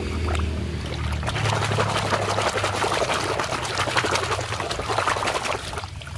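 Water splashing and sloshing in a plastic basin as a hand churns and scrubs a toy car under the surface. There is a dense run of small splashes that dies down just before the end.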